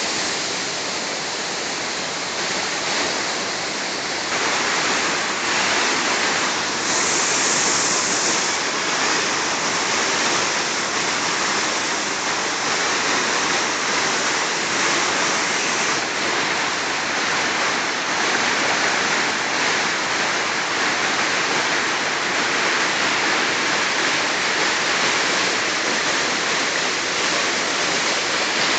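Waterfall: falling water making a steady, dense rushing hiss, a little quieter for the first few seconds.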